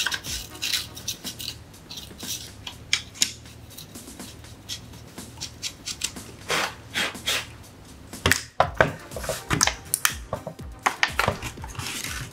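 Clicks, taps and scrapes of a small screwdriver and the plastic shroud of a graphics card being handled and worked on by hand, with a couple of longer scraping sounds partway through and near the end.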